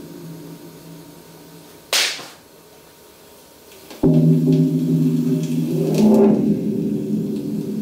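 Live experimental electronic music from turntables and electronics. A low, layered droning chord fades down, and a sharp hissing burst about two seconds in dies away. Around four seconds in the drone cuts back in abruptly and loud, with another noisy swell near six seconds.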